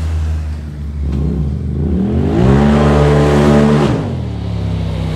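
Can-Am Maverick X3 side-by-side engine revving up hard as it accelerates away, holding high revs for about a second and a half, then dropping back suddenly, over the steady low hum of another engine idling.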